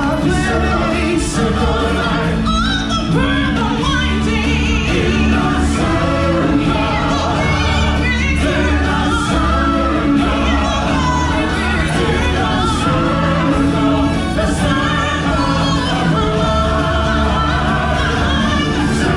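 Live stage-show music: a choir of voices singing over a full instrumental backing with a strong bass.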